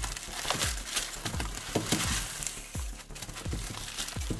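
Thin metal foil layers from a microwave oven's oil-filled high-voltage capacitor crinkling and rustling as they are pulled out and unwound by hand, in irregular crackles with a few soft knocks.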